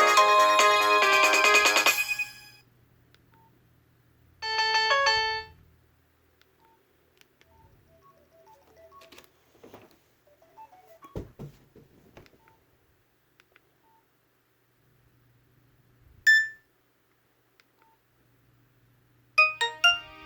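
Nokia 5300 XpressMusic phone speaker playing the end of a polyphonic ringtone, which cuts off about two seconds in. It is followed by a short melodic alert of about a second, a few faint clicks, one short beep, and the start of the next tone near the end.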